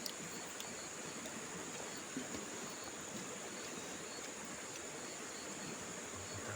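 Steady outdoor riverside ambience: an even rushing hiss, likely the river flowing, with insects chirring in a constant high band and a few faint clicks.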